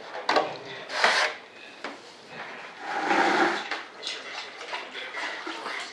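Hand work on a foam model-jet airframe: two short scrapes in the first second, a longer, louder rub about three seconds in, then lighter scratching.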